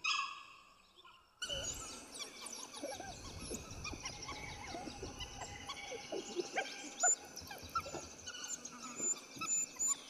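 The end of a dhole's whistling call at the very start, then from about a second and a half in, many short high squeaks and chattering calls of dholes crowding a kill, over rustling in the undergrowth.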